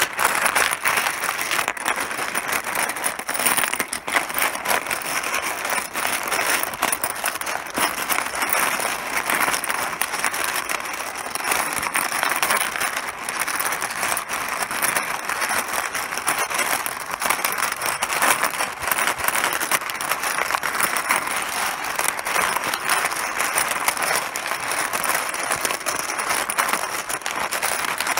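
Mahjong pieces clattering without a break: a dense stream of overlapping sharp plastic clicks as many small hard pieces knock together.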